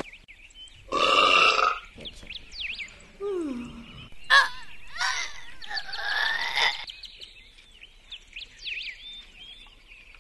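Birds chirping throughout, over a few short added sound effects: a noisy burst about a second in, a falling glide near the middle, then several burp-like pitched sounds between about four and seven seconds.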